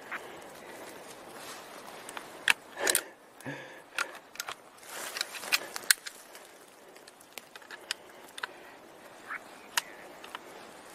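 Sharp metallic clicks and knocks of a hunting rifle being handled at its action, scattered and irregular, thickest in the first half, with a few more near the end.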